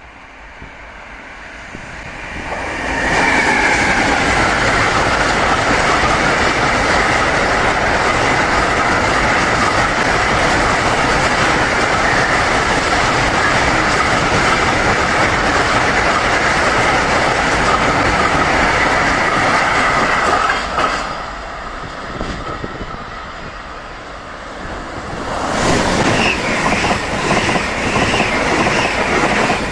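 Electric-hauled freight train of hopper wagons passing, its wheels clattering over the rails with a steady high wheel squeal. It fades about 21 seconds in, and a few seconds later an ICE high-speed train passes close by.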